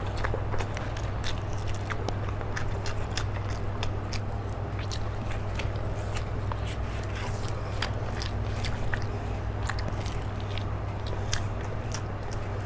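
Close-miked eating sounds: a person chewing rice and spicy chicken curry, with many small wet mouth clicks and smacks, over a steady low hum.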